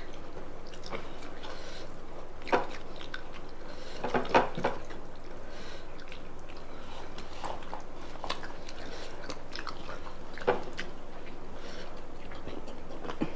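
Someone chewing and eating food, with a few sharp clicks and taps, a small cluster of them about four seconds in.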